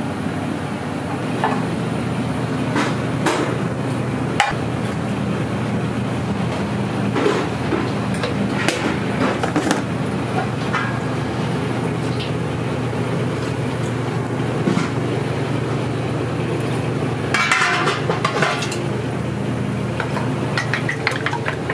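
Commercial kitchen cooking dashimaki tamago over high heat: a steady kitchen hum under scattered clinks and knocks of utensils on metal cookware. A brief flurry of clatter comes about three-quarters of the way through.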